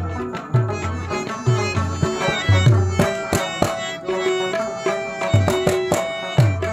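Pashto rabab playing an instrumental nagma with tabla accompaniment: plucked rabab notes over sharp tabla strokes and deep bass-drum strokes that bend in pitch.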